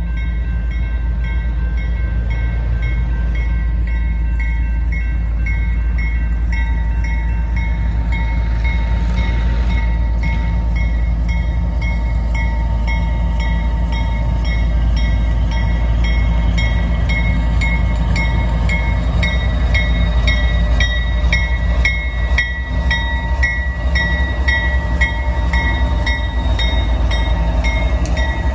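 Grade-crossing bells ringing in a steady repeating pattern over the low rumble of CSX diesel locomotives approaching, the engines growing louder as they pass in the last third.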